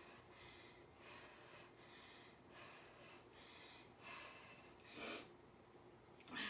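A woman breathing hard in short, repeated puffs about once a second, with two louder, sharper breaths near the end: the heavy breathing of someone mid-exercise, out of breath from a weighted row-and-raise interval.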